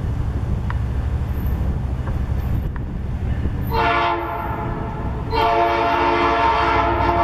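Horn of an approaching NYSW diesel locomotive: a short blast about three and a half seconds in, then a long blast near the end, over a steady low rumble.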